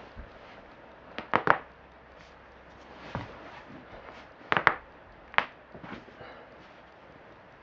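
Joints cracking during a chiropractic adjustment: a quick run of three sharp pops about a second in, then a few more single and paired pops spread over the next several seconds.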